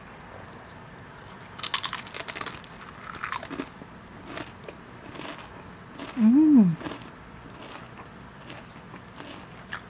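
Biting into a crisp snack, picked up close by a clip-on lavalier microphone: a run of loud crunches about two seconds in and another about three seconds in, then quieter chewing. About six seconds in comes a short hummed 'mm' that rises and then falls in pitch, the loudest sound in the stretch.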